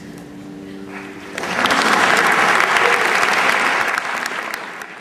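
A choir's final held chord ends about a second in, and an audience breaks into applause right after it. The clapping is loud for a couple of seconds and then starts to thin out near the end.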